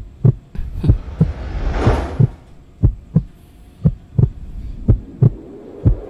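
Heartbeat sound effect in a dramatic soundtrack: paired low thumps, lub-dub, about once a second. A rising whoosh swells up and peaks about two seconds in.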